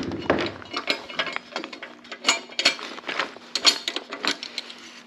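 Irregular small metal clicks and rattles of bolts and the sheet-metal front cover of a 224cc small engine being worked loose by hand.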